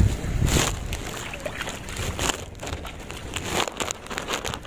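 Shallow muddy water sloshing and splashing in irregular bursts as people wade through it and grope in the mud by hand, loudest just at the start.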